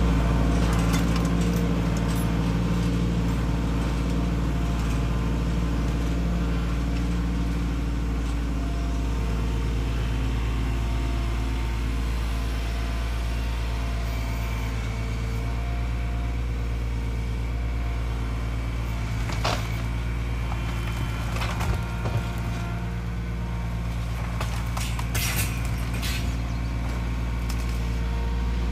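Compact tractor engine running steadily, its pitch shifting about eight to ten seconds in. In the second half come a few sharp knocks and cracks as the front-loader bucket works against the porch's wood and tin roofing.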